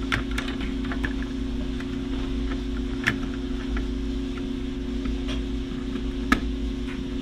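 Small clicks and taps as a dual SFP+ network card and its metal bracket are worked down into a mini PC's chassis. There are about seven scattered clicks, the sharpest about three seconds and six seconds in, over a steady low hum.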